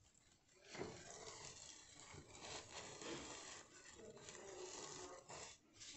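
Faint rustling and rubbing of decorative ribbon being pressed onto a cardboard chimney, with small handling knocks.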